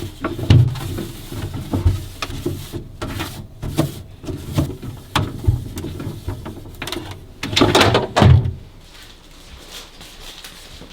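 Kitchen handling sounds: objects knocked and set down with a run of short clicks and thuds. About seven to eight seconds in there is a louder scuffling burst, and it is quieter after that.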